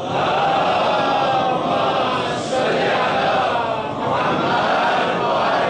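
A congregation of many voices chanting together in unison, dipping briefly about two-thirds of the way through.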